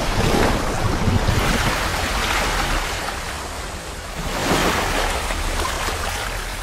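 Water rushing and splashing sound effect, starting suddenly and swelling twice, about a second in and again about four and a half seconds in, over a steady low hum.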